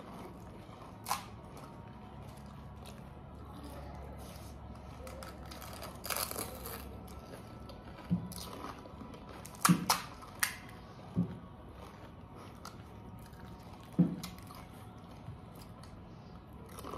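Crisp, hollow panipuri (golgappa) shells cracking as fingers break them open and crunching as they are bitten and chewed. A few sharp cracks come singly, with several close together around ten seconds in.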